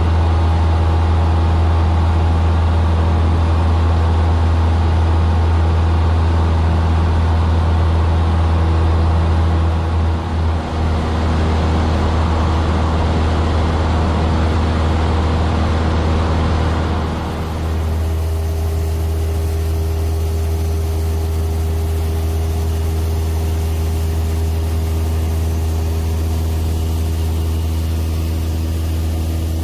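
Piston engine and propeller of a single-engine high-wing light aircraft droning steadily in the cabin in flight, a deep continuous hum with a hiss over it. About seventeen seconds in the hiss thins and the drone becomes slightly quieter.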